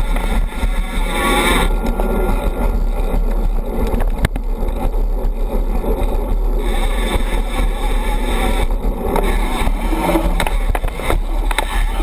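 Mountain bike rolling fast over a dirt singletrack trail, heard from a camera mounted low on the bike: a steady rumble and rattle from the knobby tyres and frame, with a few sharp knocks over bumps.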